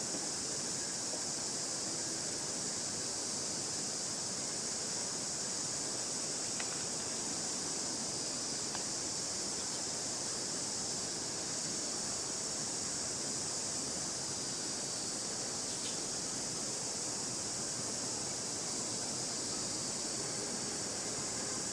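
Steady outdoor background hiss, strongest in a high band, with a few faint ticks.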